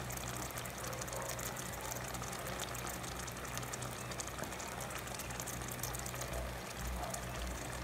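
Pot of tomato-sauce stew simmering on the stove, crackling and bubbling steadily over a constant low hum, with a few low knocks near the end.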